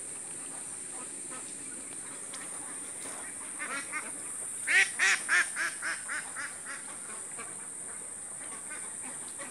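Poultry calling: a run of about a dozen short calls, about four a second. The calls are loudest about five seconds in and fade away over the next second and a half, over a steady high hiss.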